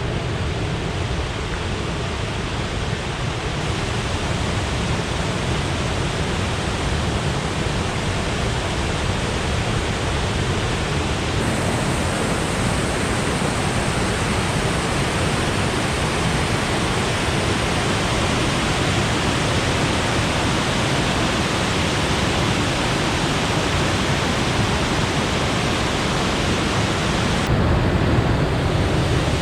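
Willow River Falls: a waterfall's water rushing in a loud, steady, even wash of noise.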